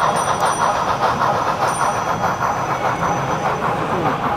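HO scale model steam locomotive, a green NSW C38 class, running across a trestle with its passenger carriages: a steady rushing sound with a regular pulse of several beats a second.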